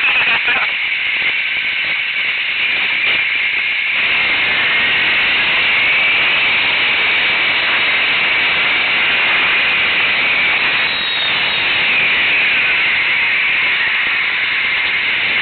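ATV riding noise on the quad-mounted camera's microphone: a steady, loud, mostly high-pitched hiss of engine and rushing air, getting fuller from about four seconds in.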